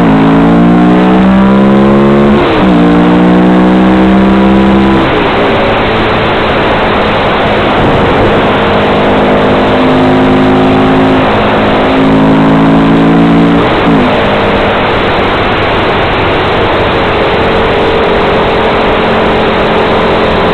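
Harley-Davidson V-Rod's liquid-cooled V-twin running at highway speed, its pitch stepping down at gear changes about 2.5 seconds in and again about 14 seconds in, then holding steady. Heavy wind rush on the microphone.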